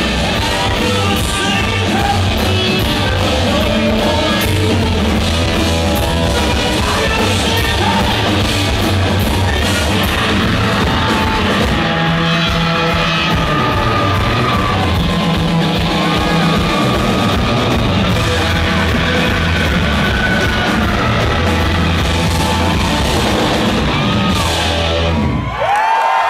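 Hard-rock band playing live, with electric guitar, bass guitar and drums under a male lead singer singing and yelling, heard from among the audience. Near the end the band stops suddenly and the singer's voice carries on alone.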